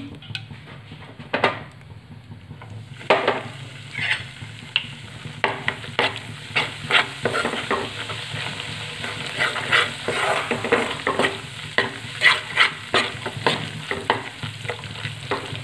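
Metal spoon stirring and scraping gram flour (besan) in hot ghee in a metal kadhai, with a frying sizzle: the besan being roasted for halwa. The scrapes are irregular and come more often after the first few seconds.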